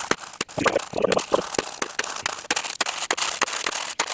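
Pieces of fire glass clinking and rattling against one another as they are taken out of a gas fire pit, a fast, irregular run of sharp clicks.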